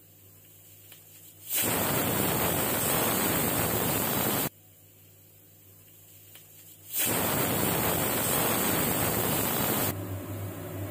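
Pigeon pressure cooker whistling twice on the gas stove: steam blasting out under the weight as a loud hiss of about three seconds each time, starting quickly and cutting off sharply. The two whistles mark the dal as pressure-cooked.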